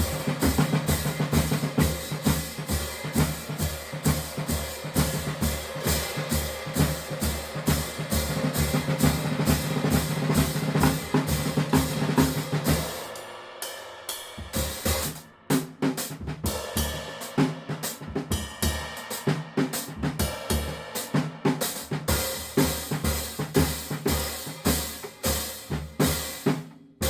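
Drum kit played in a steady groove, with bass drum, snare and a 17-inch hand-made cymbal. About halfway through the low drums drop out briefly and the playing thins before the groove picks up again.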